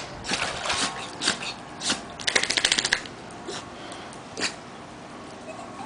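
Shallow pool water splashing under a dachshund's paws as it wades across a pool's sun ledge and climbs out: a string of separate splashes, with a quick patter of about ten a second around two seconds in.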